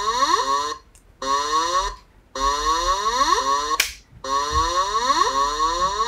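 Alarm sound from PC monitoring software, triggered by pressing the emergency call switches: a repeating electronic tone with rising pitch glides, played in bursts of about a second or more with brief gaps between. A single sharp click is heard partway through.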